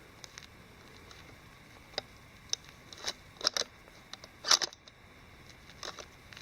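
A series of short, sharp clicks and knocks at irregular intervals, the loudest a quick cluster about four and a half seconds in.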